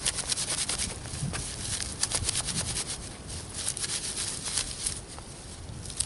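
Dry tulip poplar inner bark being rubbed and pulled apart by hand into fine fibers for a tinder bundle: a dense, crisp crackling rustle that eases off about five seconds in.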